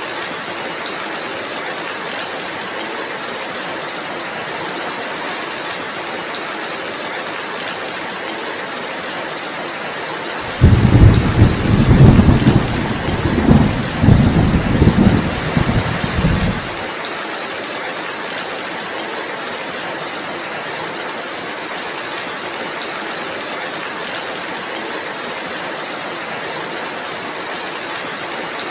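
Steady heavy rain hissing throughout, with a loud low rumble of thunder about a third of the way in that lasts around six seconds and cuts off suddenly.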